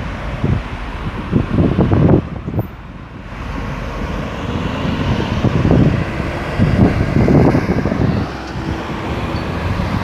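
Road traffic at a busy roundabout: motor vehicles passing continuously, the noise rising and falling as each one goes by, with gusts of wind buffeting the microphone.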